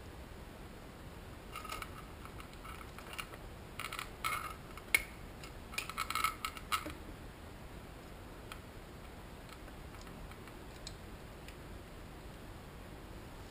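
Light metallic clinks and rattles in several short clusters over about five seconds, with one sharper clink near the middle, from metal parts being handled around a motorcycle cylinder head. Afterwards only a faint steady hiss.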